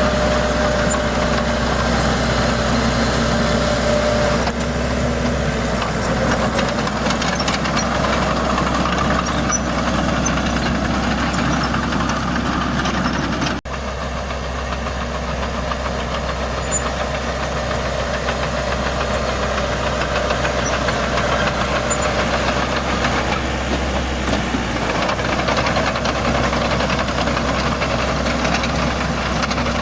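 Heavy diesel engine running steadily. About fourteen seconds in, the sound cuts out for an instant and comes back slightly quieter.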